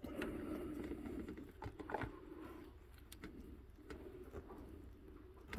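Faint, scattered clicks and scraping of hands and tools working on a car engine, with a muffled rustle of handling in the first couple of seconds.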